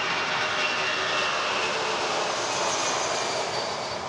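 Boeing C-17A Globemaster III's four turbofan engines running as the transport rolls past along the runway: steady jet noise with a faint high whine, easing off slightly near the end.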